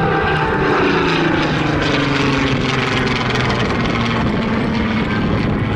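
Rolls-Royce Griffon V12 engine of a Spitfire PR XIX in a display pass, its pitch falling over the first two seconds as the aircraft goes by, then running steadily.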